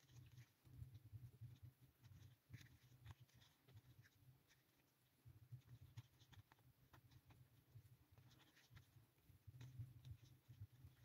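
Near silence: faint scratchy ticks of a crochet hook working acrylic yarn, over a faint low rumble that comes and goes.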